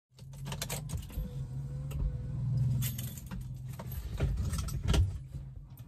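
Keys jangling and clicking as they are handled, a run of short metallic clicks over a low steady hum.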